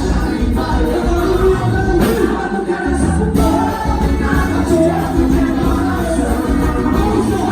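Loud festa junina quadrilha music: a sung song with a steady band accompaniment and a strong, continuous bass.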